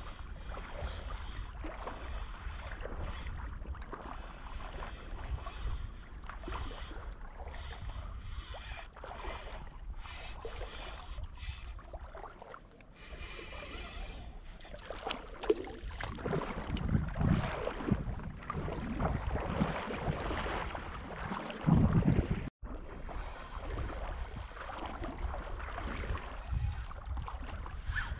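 Wind on the microphone over small lake waves lapping and water sloshing around a wading angler. The sloshing grows louder and more uneven in the second half.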